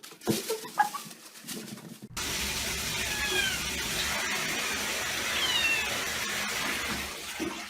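A cat meowing a few times in short calls. About two seconds in, a steady hiss of background noise starts under the calls.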